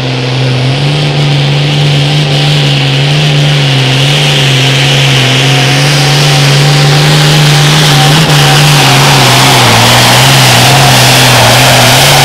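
Turbocharged International 1086 diesel pulling tractor running flat out under load as it drags a weight-transfer sled. The engine pitch holds nearly steady with small wavers, and a hiss grows louder over the second half.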